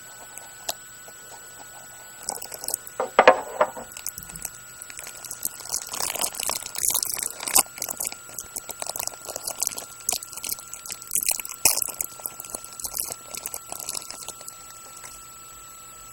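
Hockey trading cards and their packaging being handled: irregular crinkling and rustling with small clicks, in uneven bursts that stop about a second before the end.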